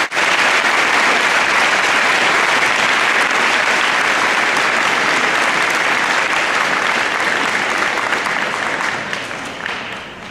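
An audience applauding, steady clapping that fades away near the end.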